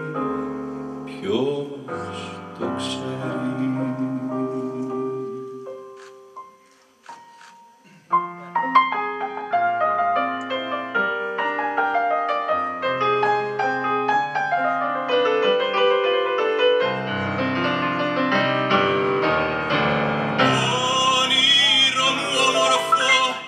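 A man sings with piano accompaniment, and the phrase dies away about six seconds in. After a brief pause a digital stage piano starts playing a new passage on its own, steady chords and runs through to the end.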